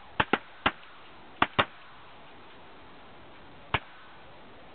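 A volley of shotgun shots at ducks coming into the decoys, six sharp reports in all. They fall in quick clusters: two close together and a third just after, then another close pair about a second and a half in, then a single shot about two seconds later.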